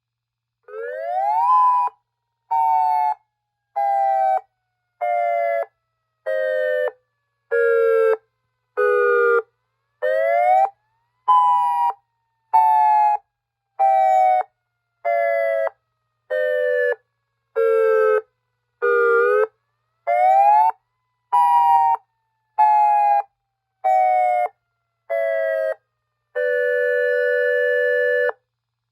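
Homemade dual-tone electronic siren sounding a pulsed wail through two 200-watt loudspeakers. Its two-note tone rises and falls in pitch, chopped into short blasts a little over a second apart, and it ends on one longer steady blast.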